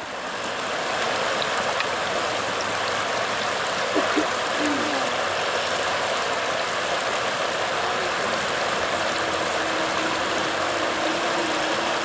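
Creek water rushing steadily over rocks in a shallow riffle, growing louder about a second in and then holding even.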